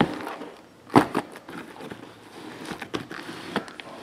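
Shrink-wrapped cardboard trading-card boxes being handled and restacked: a sharp knock about a second in, then lighter taps and crinkling of the plastic wrap.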